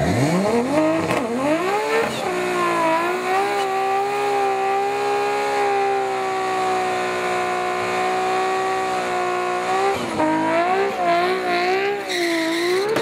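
Toyota Supra drag car doing a burnout: the engine revs up hard over the first two seconds, then holds at high revs while the rear tyres spin and squeal. Near the end the revs rise and fall several times before it lets off.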